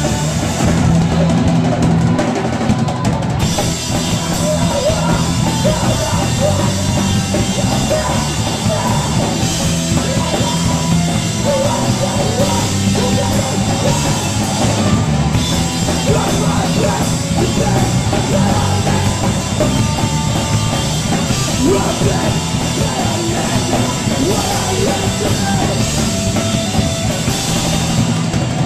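Hardcore punk band playing live, loud and continuous, with the drum kit and bass drum to the fore.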